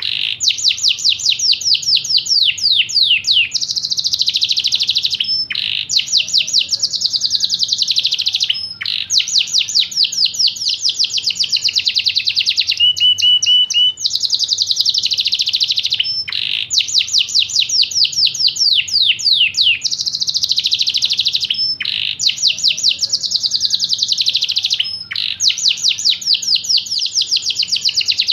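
Yorkshire canary singing: long, loud runs of very rapid repeated trill notes in phrases a few seconds long, broken by brief pauses and short clear whistled notes.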